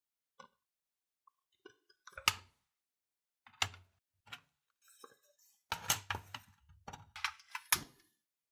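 Metal taiyaki mold knocking and clicking against a portable gas stove's grate and its own hinged halves as it is handled. There is a series of sharp clicks and clanks, one loud knock about two seconds in and a cluster close together in the last few seconds.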